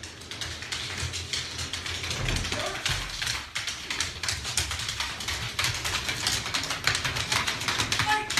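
A dog's claws clicking and tapping rapidly and irregularly on a hardwood floor as it moves about, over a low rumble.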